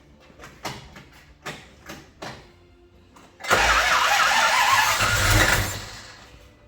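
A few light knocks, then about halfway through a loud burst as the rebuilt Pontiac 400 V8 is cranked and fired back up after an ignition timing change. The burst lasts about two and a half seconds, then fades.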